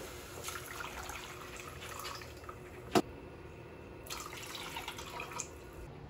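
Water poured into a metal pot on a gas stove, splashing and trickling, with a single sharp knock about three seconds in and a second stretch of splashing after it.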